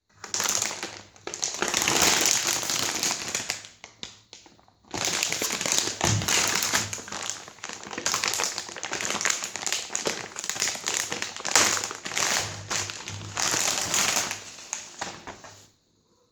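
Hard-rubber screaming-chicken dog toy squeezed by hand, letting out shrill squawks as air is forced through it. The squawks come in two long stretches, with a short break about four seconds in.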